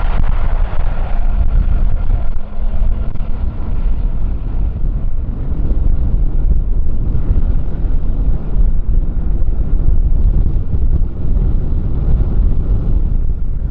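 Strong wind buffeting the microphone, a loud, heavy low rumble. A fainter hum in the mid range fades out over the first few seconds.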